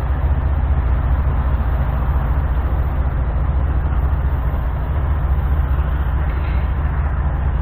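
Diesel freight locomotive engine running steadily at low throttle, a deep, even throb.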